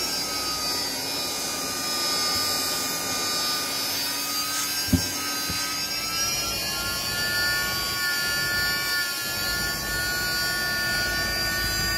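Vacuum cleaner running steadily with a high whine while its hose nozzle sucks a cloth into itself. A single short knock comes about five seconds in, and the whine steps a little higher past the middle.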